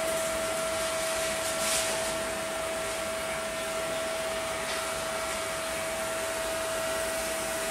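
Steady whirring hiss of a ventilation fan running, with one constant hum-tone over it and no change throughout.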